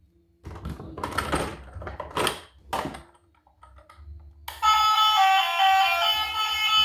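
A few rustling, clattering handling sounds, like toy packaging being handled during an unboxing. About two-thirds of the way in, background music with a bright stepping melody starts and carries on.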